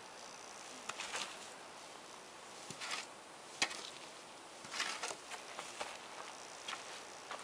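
Footsteps and a wooden paddle scuffing on a forest floor of needles and grit: a few scattered crunches and scrapes, with one sharp tap about three and a half seconds in.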